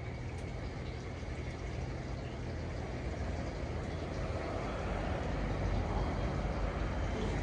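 Drying blowers of an Istobal M12+ rollover car wash running in the intermediate drying pass: a steady rush of air with a low hum underneath, growing slightly louder past the halfway point.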